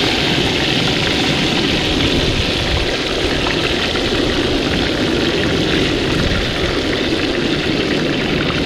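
Chicken deep-frying in coconut oil in a cast-iron Dutch oven, a steady sizzle and bubbling, with wind rumbling on the microphone underneath.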